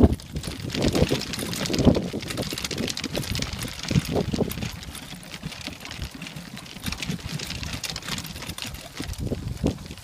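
Chalo Sulky BumbleBee dog wagon rolling over a dirt road behind a trotting four-dog team: a steady crunch and rattle of the wheels and rig. Low gusts of wind buffet the microphone, strongest in the first two seconds.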